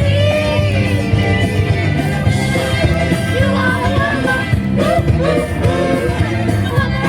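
Pop song playing, with sung vocals over a steady bass line.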